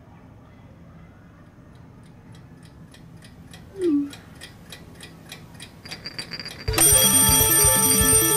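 A clock ticking about four times a second, growing steadily louder, with a short falling phone message tone about four seconds in. Near the end a loud alarm-clock ring starts suddenly, several steady tones pulsing.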